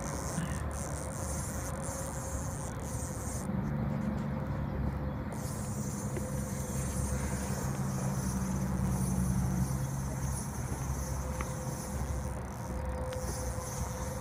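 Steady outdoor background noise with a low motor hum from about three to ten seconds in, and a thin high hiss of insects in the later part.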